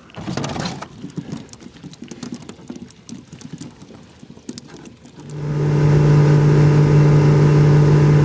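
Scattered light knocks and rattles, then about five seconds in a boat motor comes on and runs with a loud, steady drone.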